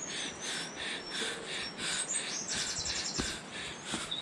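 Outdoor forest ambience: a rhythmic pulsing animal call repeats about three times a second, with birds chirping and a brief quick trill above it. There are a few faint footsteps on stone steps.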